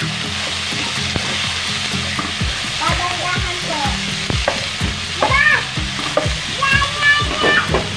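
Diced pork sizzling in hot cooking oil in a nonstick pan. A spatula stirs it, scraping and tapping against the pan from about a third of the way in. A few brief pitched tones sound over it midway and near the end.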